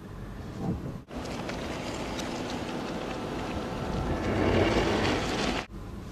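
Rushing wind on the microphone over the low rumble of a moving car, growing louder a little after four seconds in. The rushing starts and stops abruptly.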